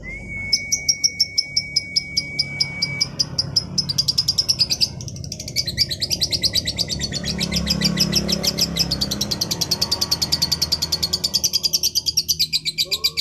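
Female lovebird giving its rapid chattering trill: a long run of high, evenly repeated chirps that speeds up partway through. A steady high whistle-like tone is held under the chirps for the first three seconds.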